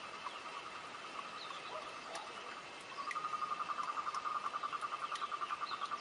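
An animal trill: a rapid, evenly pulsing call that starts about halfway through and carries on. Under it runs a faint steady high tone, with scattered short chirps and ticks.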